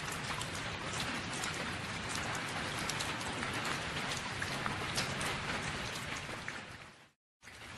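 Meat and sausages frying in hot fat on a steel tárcsa cooking disc: a steady sizzle with frequent small pops and spits. It fades out near the end, cuts to silence for a moment, then comes back.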